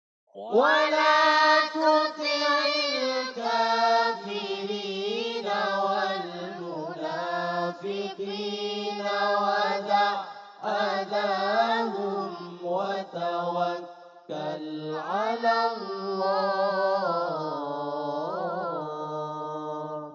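Melodic Qur'an recitation (tilawah) chanted into microphones: long, ornamented phrases that rise and fall, with a short break for breath about fourteen seconds in.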